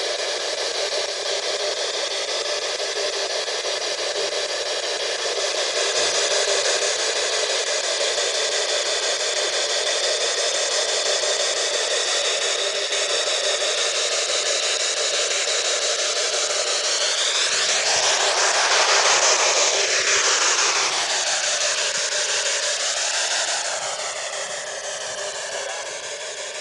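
Spirit box radio scanner sweeping through stations: a continuous hiss of radio static with warbling pitch glides, louder for a moment about two-thirds of the way in. Near the end comes a short warbling fragment that the uploader takes for a spirit voice saying 'yea'.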